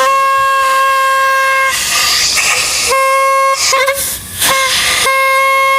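Old bicycle horn blown with compressed air from an air compressor, giving a loud, steady honk in several blasts. A long blast ends just under two seconds in, a short one comes about three seconds in, and another long one starts past the middle. Air hisses throughout.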